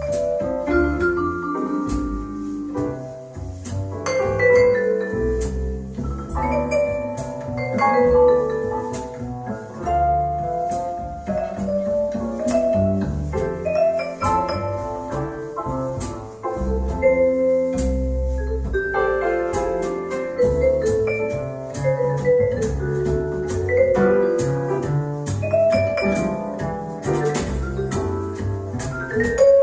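Instrumental music played through Magnat Zero 3 car audio speakers: bright struck melodic notes over strong, pulsing deep bass.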